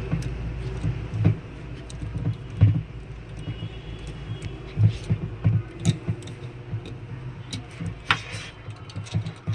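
A spanner loosening a nut on a mixer grinder's motor housing, with irregular light metallic clicks and dull knocks as the tool and the motor are handled.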